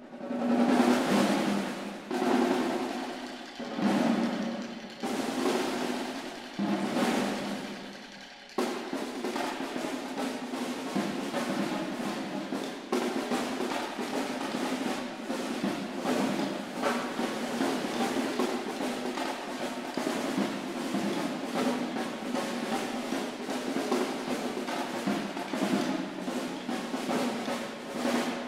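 An ensemble of snare drums playing rolls: during the first eight seconds or so, a series of rolls that each swell up and die away, about one every second and a half, then a dense continuous roll that holds steady.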